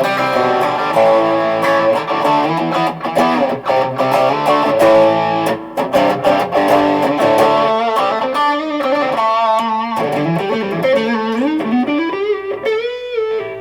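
Electric guitar, a Gibson Les Paul Tribute on its bridge pickup, overdriven by a Tube Screamer pedal through an Orange amp: held chords for the first half, then a single-note lead line with string bends and vibrato, ending on a slow bend up.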